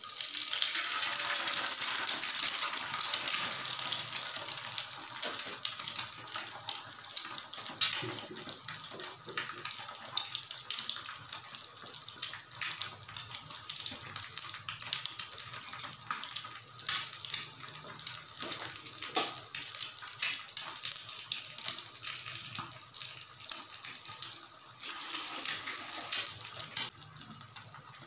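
An egg frying in a hot ridged grill pan: a loud sizzle as it hits the pan, easing over the first few seconds into a steadier sizzle with many small crackles and pops.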